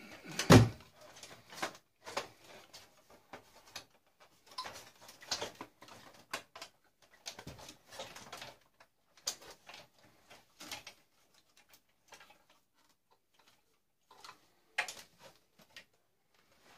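Irregular clicks, knocks and rattles of plastic and metal parts being handled as an old tube TV is taken apart by hand, with one loud knock about half a second in.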